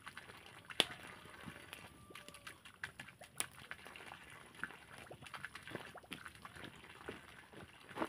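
Small wood campfire crackling, with irregular faint snaps and a few sharper pops.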